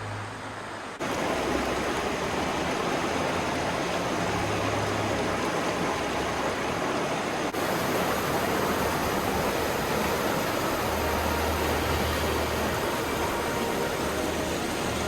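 Rushing river water: a steady roar that starts abruptly about a second in and carries on, with a brief dip about halfway through.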